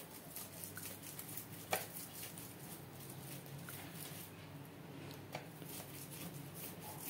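Faint scratchy rubbing of a cut lemon half over a roasted corn cob's kernels, with two soft taps, over a low steady hum.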